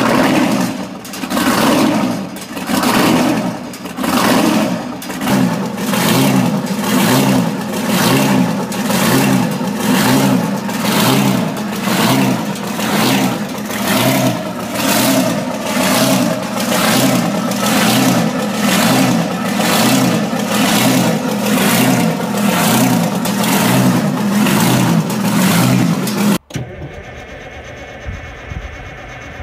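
Detroit Diesel 6V71 two-stroke V6 diesel in a 1967 GMC truck running loudly, its note swelling and falling about once a second. Near the end it cuts to a quieter, steadier engine sound, the Detroit 8V92 of a Peterbilt 359.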